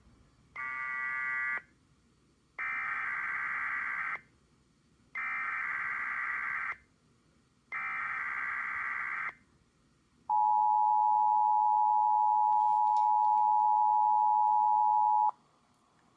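Emergency Alert System test tones on a KDKA radio broadcast: four short blasts of screeching digital header data, then the steady two-tone EAS attention signal held for about five seconds before it cuts off. The sound marks the start of an EAS test alert.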